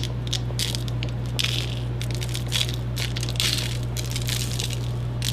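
Kosher salt being sprinkled by hand over raw beef shanks in foam trays: a run of short, irregular crunchy ticks as the grains are pinched and land, over a steady low hum.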